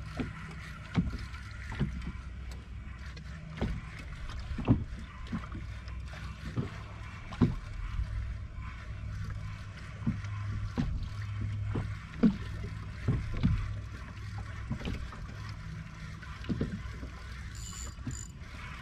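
Small fishing boat at sea: a steady low hum with irregular sharp knocks, about one a second, against the hull and boat fittings. A faint high beep sounds twice near the end.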